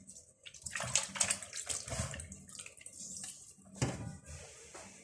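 Water sloshing and splashing in a plastic basin in irregular bursts as hands rub and wash whole zubaidi (silver pomfret) in it.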